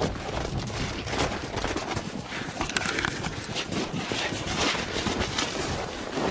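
Footsteps crunching in snow at a walking pace.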